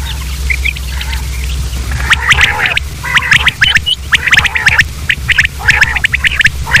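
Common quail calling in rapid, chattering bursts that grow denser and louder from about two seconds in, over a steady low hum.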